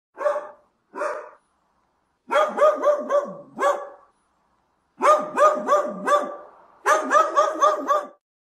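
A dog barking: two single barks, then several quick runs of barks.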